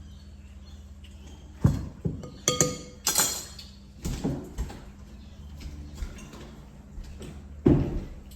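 Kitchen clatter of dishes and utensils being handled: a quick run of sharp knocks and clinks, one ringing briefly like metal or glass, then another loud knock near the end, over a steady low hum.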